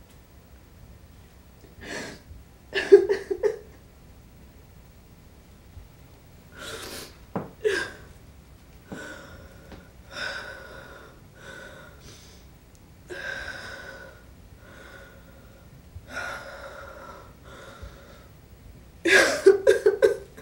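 A woman sobbing in gasping bursts, with thin, high whimpering cries through the middle and a loud fit of sobs near the end.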